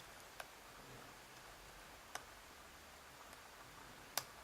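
Faint, sparse metal clicks of a lock-picking hook probing the pin stacks of a pin-tumbler lock under light tension, feeling for a binding pin. Four small clicks, the loudest just before the end.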